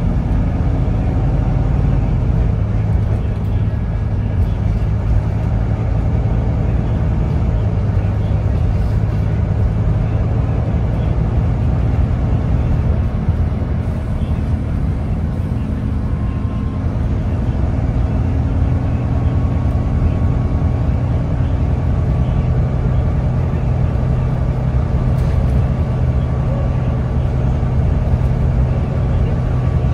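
Volvo B9TL double-decker bus's 9.2-litre diesel engine running steadily under way, heard from on board with road noise, its pitch shifting only slightly.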